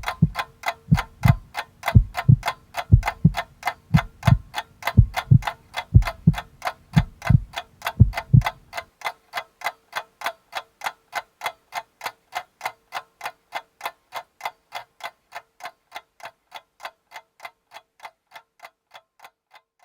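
Rapid, even ticking clicks at about four a second over deep drum beats. About nine seconds in the drum beats stop, and the clicks carry on alone and gradually fade out.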